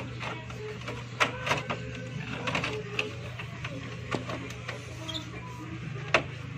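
Irregular plastic clicks and knocks as a motorcycle's engine cover panel is pushed and snapped into place by hand, the sharpest about a second in and just after six seconds, over a steady low hum.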